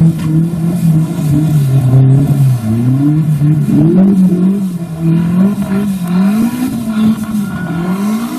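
Off-road 4x4's engine revving, its pitch rising and falling again and again.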